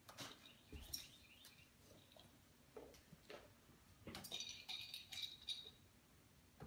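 Near silence broken by faint scattered taps and scuffles of small kittens playing in a woven basket and at a plastic toy, with a brief run of light clicking and rattling about four seconds in.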